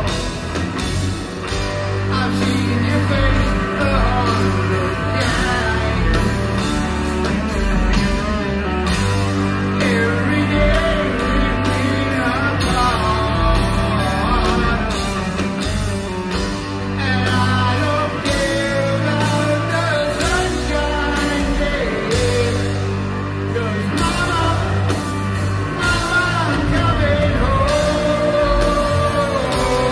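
Live heavy rock band playing, a male lead singer over electric guitars, bass and drums through an arena PA.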